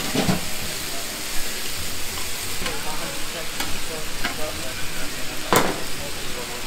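Marinated chicken pieces sizzling steadily on a hot flat-top griddle, with metal tongs and a scraper clacking against the plate a few times, loudest about five and a half seconds in.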